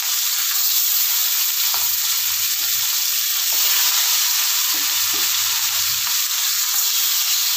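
Rohu fish steaks frying in hot mustard oil in a kadai, the oil sizzling with a steady hiss.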